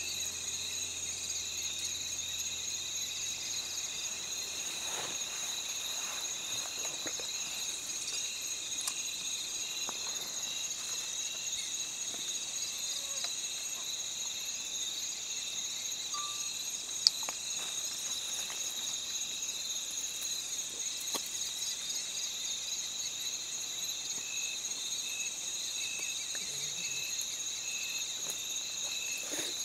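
A continuous, high-pitched chorus of insects such as crickets or cicadas, trilling steadily. A single sharp click sounds a little past halfway through.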